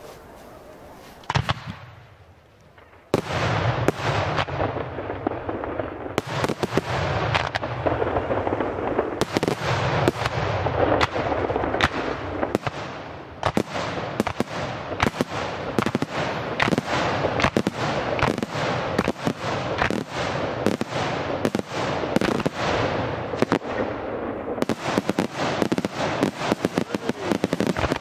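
Aerial firework shells bursting in rapid succession, several bangs a second almost without a break, over a continuous rumble and hiss. Before this there is a quieter opening with one sharp bang about a second in, and the barrage starts about three seconds in.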